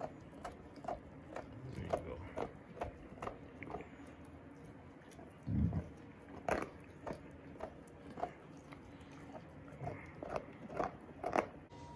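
A Vizsla puppy gnawing a raw bison bone: a series of sharp crunching clicks about two a second as its teeth work the bone. There is one brief low thud about halfway through.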